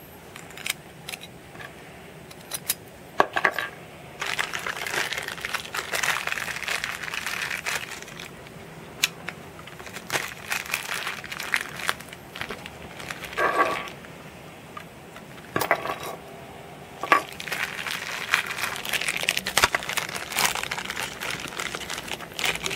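Clear plastic packaging crinkling, with scattered sharp clicks of small plastic and metal Beyblade parts being fitted together and set on a tabletop.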